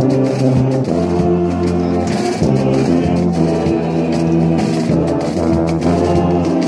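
Brass band of sousaphones and French horns playing a slow tune in sustained full chords, with percussion hits sounding through it.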